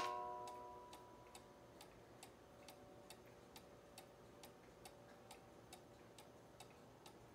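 Mechanical weight-driven cuckoo clock ticking faintly and steadily, a little over two ticks a second, while the last notes of its musical movement's tune fade out in the first second.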